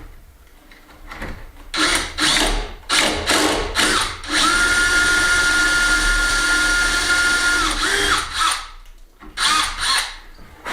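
Power drill with a 10mm bit countersinking a screw hole in a door, run in a few short blips, then held for about three seconds with a steady whine that spins up and winds down, then a couple more short blips near the end.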